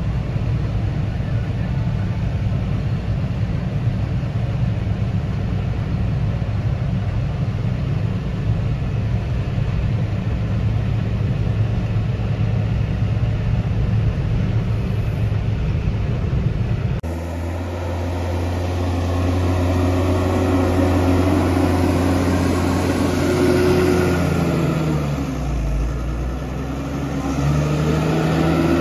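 Steady, dense low rumble of heavy farm machinery while a Claas forage harvester chops maize alongside a tractor and trailer. About 17 seconds in it gives way to a New Holland tractor's engine working silage on the clamp, its pitch dipping and rising as the load changes.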